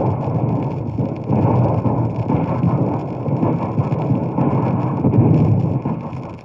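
Dense battle gunfire of rifle and pistol shots from an old 78 rpm sound-effects record, the shots running together into a continuous rolling rumble with crackle. It cuts off about six seconds in.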